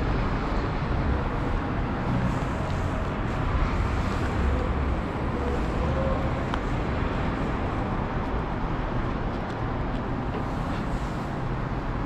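Steady outdoor city background noise, a low traffic rumble with no distinct event, and a few faint clicks.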